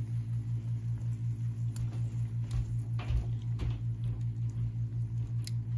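A steady low electrical hum with a regular pulsing, with a few faint clicks from handling a probe thermometer stuck into the roast chicken.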